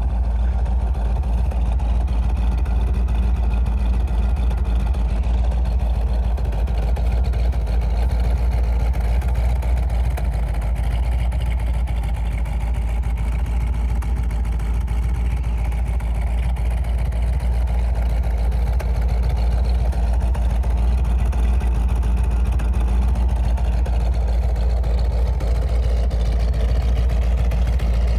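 426 Hemi V8 with solid lifters idling steadily, smooth and even.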